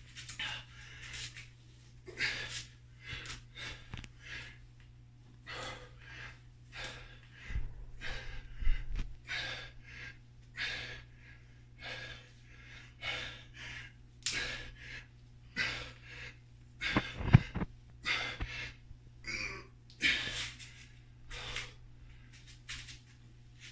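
A man's hard, fast breathing while exercising with a resistance band: quick forceful breaths, somewhat more than one a second, played back at double speed. Over a steady low hum, with a single loud thump about two-thirds of the way through.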